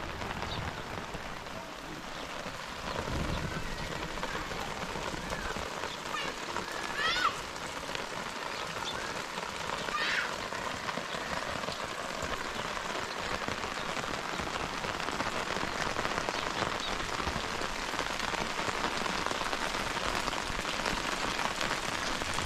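Heavy rain falling in a steady hiss. Two short high calls break through it, one about seven seconds in and another about ten seconds in.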